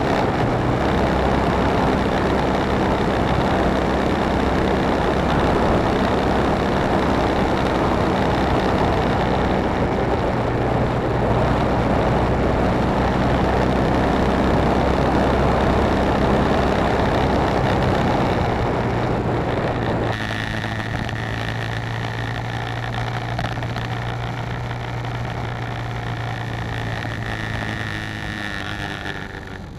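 BMW G650GS single-cylinder motorcycle engine running at steady cruising speed under heavy wind rush on the camera. About twenty seconds in, the sound cuts abruptly to a quieter, steady engine note with less wind and a faint high whine.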